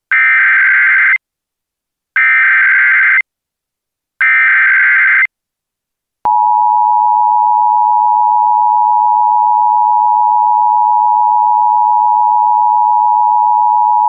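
Emergency Alert System tones: three one-second bursts of the SAME digital header, a buzzing data warble, two seconds apart. From about six seconds in, the steady two-tone attention signal (853 and 960 Hz) is held for about eight seconds, marking the start of an emergency alert.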